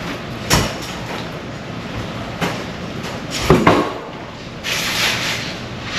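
Scattered knocks and clatters of objects being handled, with a short scraping rush about five seconds in.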